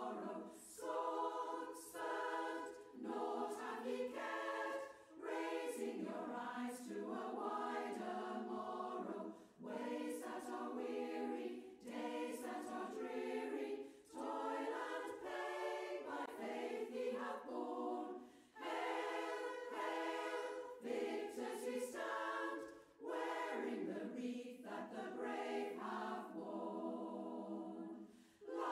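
A choir singing unaccompanied, in phrases with brief pauses between them.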